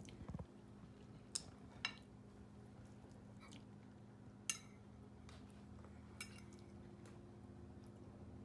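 Near-quiet room with a steady low hum and four short, sharp clicks a second or more apart.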